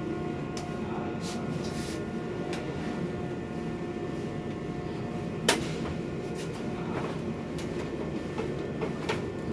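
Steady mechanical hum with scattered clicks and knocks of tools or parts being handled, and one sharp knock about five and a half seconds in.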